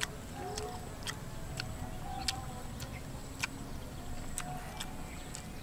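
Sharp clicks and crunches of someone eating with her mouth close to the microphone, coming irregularly about once a second. The loudest are a little over two seconds in and about three and a half seconds in.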